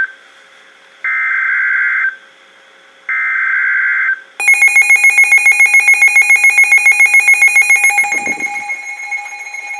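Emergency Alert System end-of-message data bursts: short, loud one-second bursts of warbling data tones, one second apart. About four and a half seconds in, a loud electronic alarm starts beeping rapidly, about eight beeps a second, then carries on steadier and fainter after about three and a half seconds.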